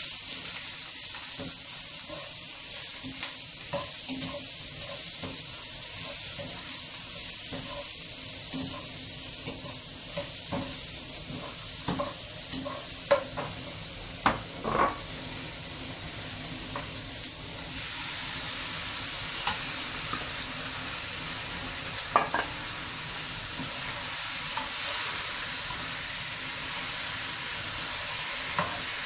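Chopped vegetables sizzling in hot oil in a wok, stirred with a metal wok ladle that scrapes and knocks against the pan, with a few sharper knocks now and then.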